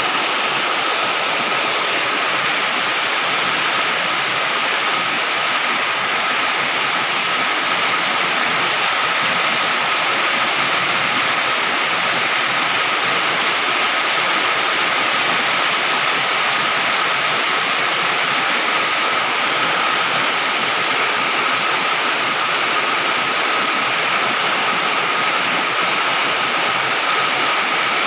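Heavy rain falling steadily on a galvalume metal-sheet roof: a dense, even hiss of drops on the sheet metal. A faint steady tone runs underneath.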